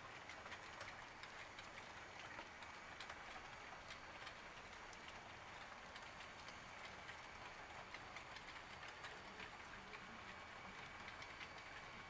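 Model railroad freight cars rolling past, faint: a soft rolling hiss with many small irregular clicks from the wheels on the track.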